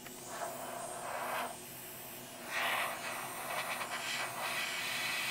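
Hot air rework station blowing onto the motherboard to dry the top coat of freshly applied UV solder mask: a steady blowing hiss that swells louder a couple of times. The repairer puts the blowing noise down to a hole in the board at that spot.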